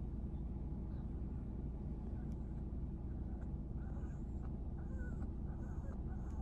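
Steady air-conditioning noise with a teacup Yorkie's faint, high whimpering cries coming through from about two seconds in. The dog is groggy and crying after anesthesia.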